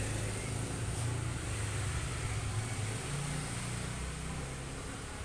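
Steady low hum of night-time city background noise, with no sudden sounds.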